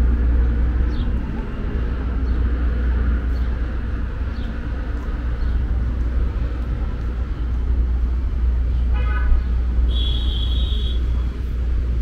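Steady city traffic rumble from cars on the street and the bridge roadway overhead, with a few faint short chirps and a brief high-pitched tone about nine to ten seconds in.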